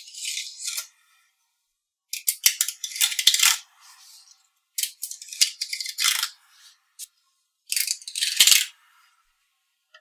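Small neodymium magnetic balls clicking and rattling as panels of them are slid off a plastic card and snapped onto a magnetic-ball model, in four separate bursts of rapid clicks.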